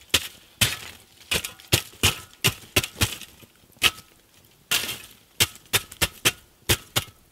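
Glowing wood embers in a steel fire bowl being struck again and again with a poker to break them up: a string of irregular sharp knocks with glassy clinks of charcoal, about two or three a second.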